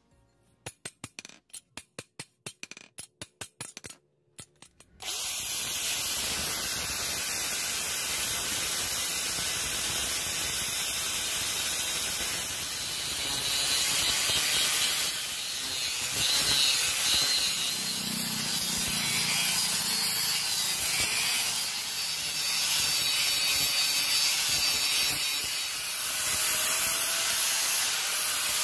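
A quick run of sharp hammer strikes on a steel machete blade for the first few seconds. Then an electric angle grinder starts grinding the blade and runs steadily to the end, its loudness swelling a little as the disc is pressed to the steel.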